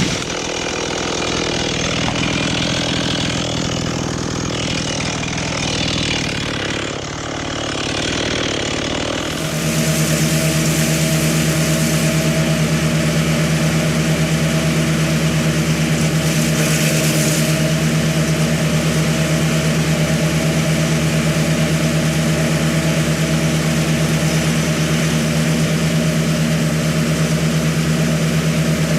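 Small engine of tree-removal power equipment: uneven, shifting engine noise at first, then from about nine seconds in a louder engine running steadily at one constant pitch.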